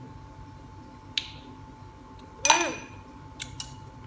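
A spoon clinking against a glass: a light tap about a second in, then a louder ringing clink about halfway through.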